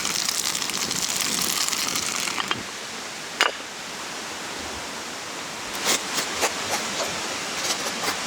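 Campfire crackling with sharp, scattered pops over a steady hiss; the hiss is louder at first and drops away about two and a half seconds in.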